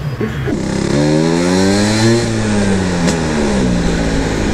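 Two-stroke Vespa scooter engine, modified with a reed-valve intake, pulling under throttle while ridden: the revs climb for about a second and a half, then drop back as the throttle eases.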